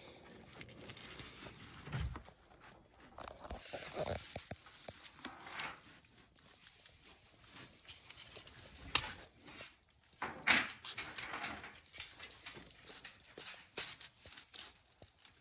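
Asian water monitor feeding on raw chicken gizzards and livers: irregular wet smacks and clicks of the jaws tearing and gulping the meat, with a sharp click about nine seconds in and a louder burst shortly after.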